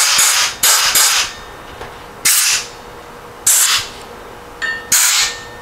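Compressed-air blow gun giving six short blasts of hiss through the oil passages of a Porsche 912 crankshaft's journals, clearing them of debris after washing.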